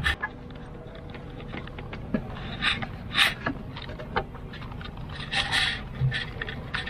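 Handling noise as wires are worked through a rubber firewall grommet: rustling and a few short scrapes with small clicks, the longest scrape about five and a half seconds in.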